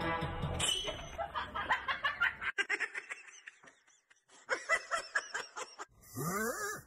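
A person laughing in quick, short bursts, in two runs. In the last second a sleeping cat snores with a long, rising in-breath.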